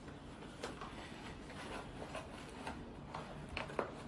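Faint, scattered clicks and rustles of a cardboard toothpaste box and clothing being handled as the box is tucked into a trouser waistband.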